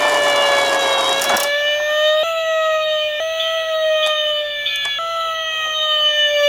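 Electronic siren of a toy emergency vehicle wailing, its pitch sliding slowly down and snapping back up about once a second. A rushing noise sits under it for the first second or so, and a few light clicks come later.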